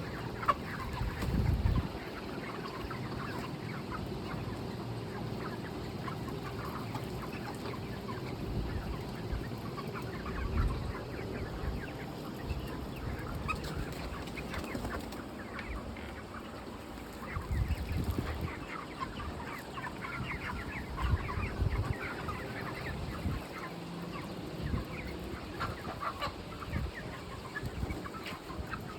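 A flock of chickens clucking continuously, many short overlapping calls at once, with a few low thumps now and then.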